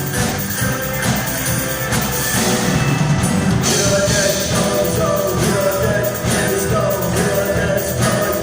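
Rock song played by a band, with guitar and drums; a male voice sings over it from about four seconds in.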